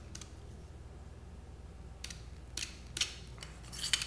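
RC helicopter torque tube assembly being pushed down inside the metal tail boom with a smaller boom, the tubes scraping and clicking against each other. Several short scrapes come in the second half, the loudest near the end.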